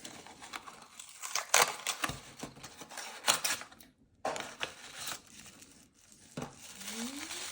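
Blind-box packaging being torn open and crinkled by hand: a run of sharp rips and crackles, with a short pause about four seconds in. A short rising hum of voice comes near the end.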